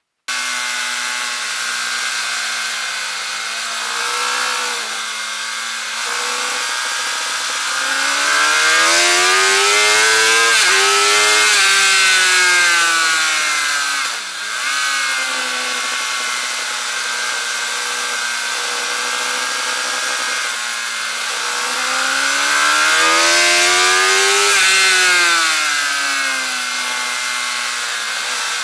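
Suzuki GSX-R 750 K8's inline-four engine heard onboard at speed, its pitch steady, then climbing under throttle about eight seconds in, with a brief dip near eleven seconds. It falls back, dips sharply around fourteen seconds, holds steady, then climbs and falls again past twenty seconds.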